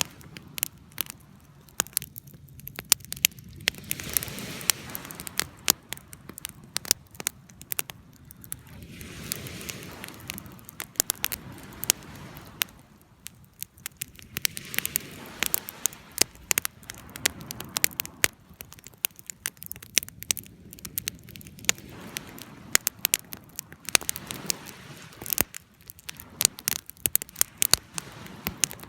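Wood fire crackling, with sharp irregular pops and snaps over a soft rushing of flame that swells and fades every few seconds.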